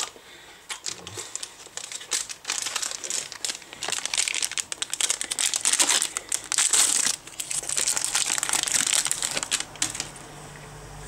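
Plastic-foil wrapper of a BiFi mini salami crinkling as it is handled and opened by hand, in dense irregular crackles that die down about ten seconds in.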